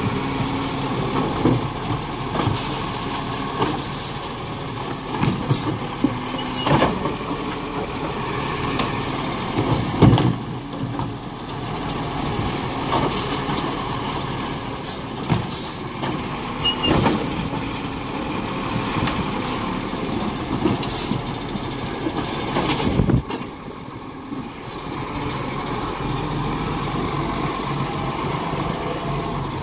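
Garbage truck running, its engine a steady drone broken by repeated sharp clanks or hisses as it works, the loudest about ten seconds in. About 23 seconds in the sound cuts off sharply, then a quieter engine drone carries on.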